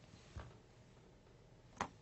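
Near silence: faint room hiss, with a soft thud about half a second in and a short sharp click near the end.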